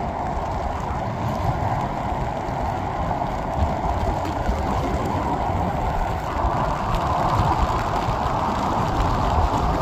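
Strong wind buffeting the microphone in irregular low rumbles, over a steady rushing hiss.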